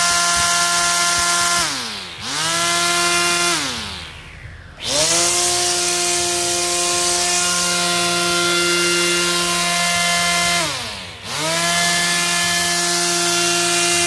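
Ryobi 110 V, 400 W electric string trimmer's motor running at a steady high whine. The trigger is released and it spins down three times, about two seconds in, about three and a half seconds in and about ten and a half seconds in, and each time it spins straight back up to speed.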